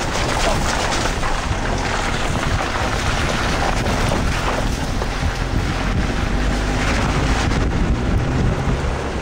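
Strong wind buffeting the microphone: a steady rushing noise with heavy low rumble and small gusts.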